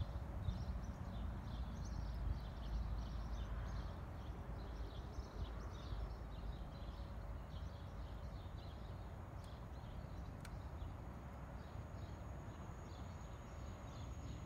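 Small birds chirping in quick, repeated short notes over a low, steady rumble, with one sharp click about ten seconds in.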